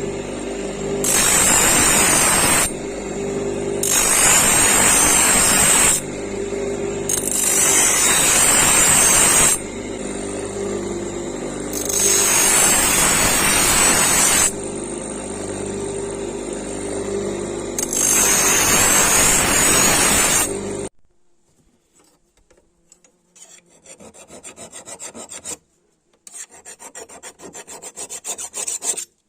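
A power grinder runs steadily, with five loud stretches of a few seconds each where a steel knife blade cut from a chainsaw bar is ground against it. About two-thirds of the way through, the machine stops abruptly and a quieter run of quick rasping strokes follows, like hand filing or sanding of the blade.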